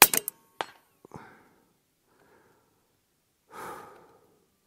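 Western Airguns Rattler .30 PCP air rifle firing one shot, a loud sharp crack. About half a second later comes a second sharp hit with a short ring as the slug strikes the steel plate at 100 yards. A soft breath out follows near the end.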